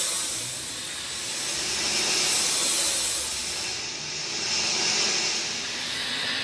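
Steady rain falling, a dense hiss that swells and eases every couple of seconds.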